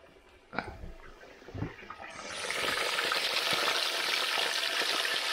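Pieces of whole fish, head included, frying in hot oil in a pan. After two knocks near the start, a loud, steady sizzle swells in about two seconds in and holds.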